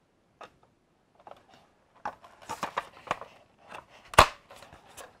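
Hard plastic parts of a Hasbro Vintage Collection X-wing toy clicking and knocking together as the wing assembly is pushed into the fuselage, with one loud sharp click about four seconds in.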